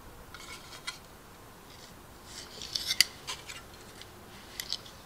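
Light clicks and rustles of hard plastic model-kit parts being handled, a 1/25 scale Jeep body shell turned in the hand. The clicks come in small clusters, the sharpest about three seconds in.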